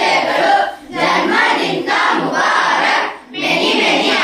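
A group of children's voices calling out together in loud unison, in phrases of about two seconds with short breaks between them.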